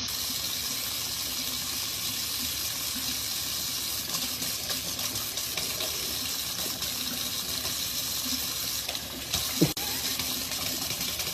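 Steady running water, like a tap running into a sink, with one short, pitched sound near the end.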